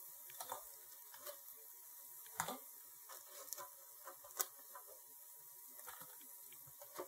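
Soft clicks and taps of silicone-tipped kitchen tongs gripping crispy chicken wings in an air fryer basket and setting them down in a glass bowl, with the sharpest taps about two and a half and four and a half seconds in.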